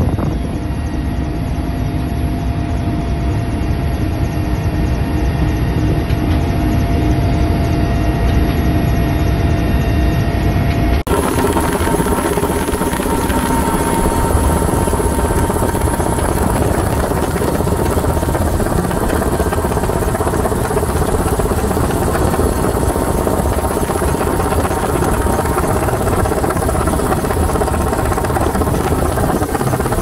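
Helicopter engine and rotor noise heard from inside the cabin: a loud, steady drone with a few steady tones. The sound changes abruptly about eleven seconds in, at a cut between two recordings.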